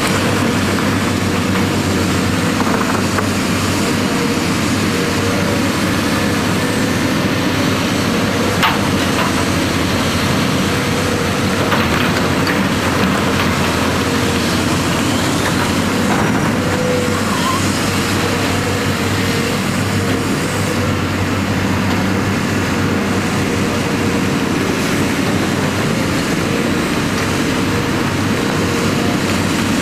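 Diesel engines of heavy earthmoving machines, excavators and dump trucks, running steadily at work, with a few sharp knocks.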